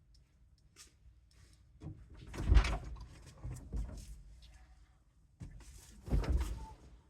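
Two loud bumps with rattling, about two and a half seconds in and again about six seconds in, with light clicks between: tools and parts being worked at a steering wheel's horn button assembly.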